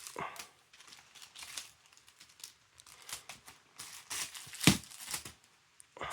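Parcel packaging being pulled apart by hand: irregular crinkling and tearing of paper and packing tape, with one loud sharp snap about three-quarters of the way through.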